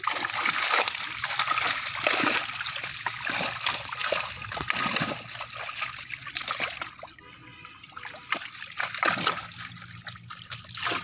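Water splashing and slopping as a mass of netted fish thrashes in shallow water and is scooped out by hand, with many short splashes one on top of another. It eases off about seven seconds in, then picks up again near the end.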